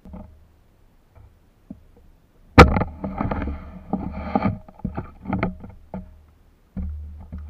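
A sharp knock about two and a half seconds in, then about three seconds of scuffling, splashing and small knocks as someone grabs about in shallow tidal water. Low wind rumble on the microphone near the start and near the end.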